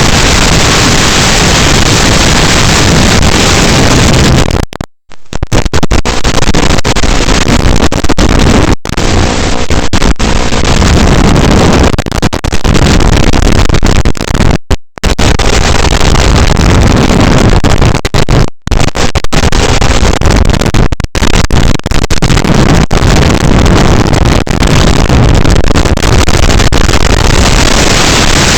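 Loud steady hiss of static from an FPV drone's analog video link, cutting out abruptly for a moment about five seconds in and a few more times later.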